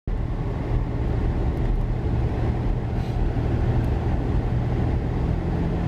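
Vehicle driving on a road: steady engine drone and road rumble heard from inside the cab.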